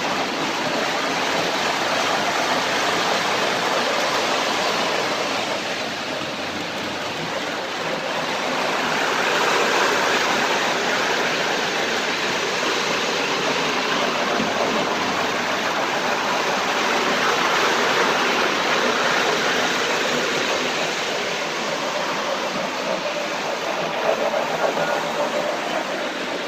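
O-gauge model trains rolling on three-rail track: a steady, noisy rumble of wheels and motors that swells and fades as the cars pass close by.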